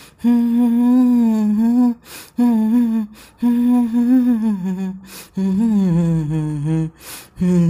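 A man humming a wavering tune with closed lips, in about five short phrases broken by brief gaps.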